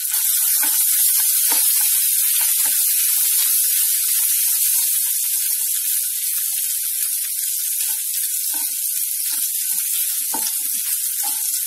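Chopped garlic, grated ginger and green chillies sizzling in hot oil in a kadai as they are sautéed and stirred with a wooden spatula: a steady hiss with scattered small crackles.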